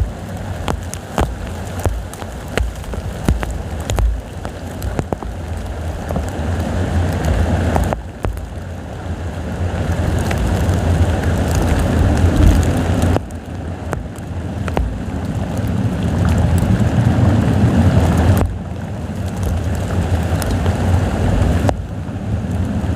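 Heavy rain falling in strong, gusting wind, with drops striking close by and wind buffeting the microphone in a deep rumble. The level drops suddenly several times, then builds again.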